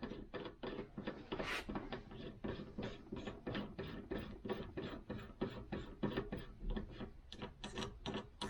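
Rapid, even clicking from a reloading press as a crimp die is run down until it bottoms out, about five or six clicks a second.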